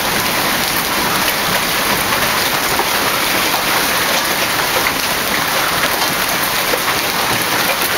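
Hail falling hard, a loud, steady, dense patter of many small impacts.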